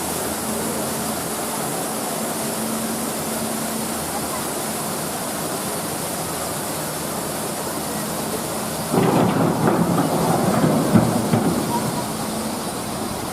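Steady rush of a waterfall's falling water. About nine seconds in, a louder, uneven sound joins for about three seconds.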